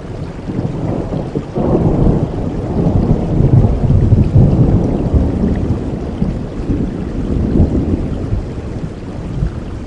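Rain falling steadily while a long, deep roll of thunder swells in about a second and a half in, peaks midway and slowly rumbles away.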